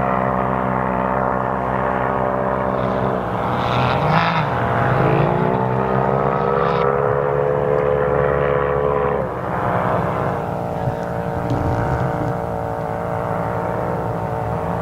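Engines of off-road side-by-sides running on a sand dune, a steady drone whose pitch dips and then climbs again about four seconds in and falls away about nine seconds in as they rev and ease off.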